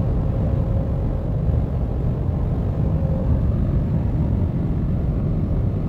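Steady low rumble of tyres and engine heard inside an SUV's cabin while cruising at highway speed.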